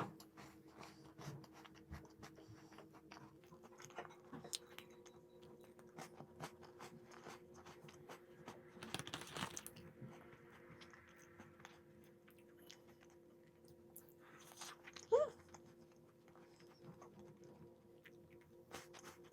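Close-up crunching and chewing of snacks, with many small crisp crunches over a steady low hum. About 15 seconds in, a short rising squeak is the loudest sound.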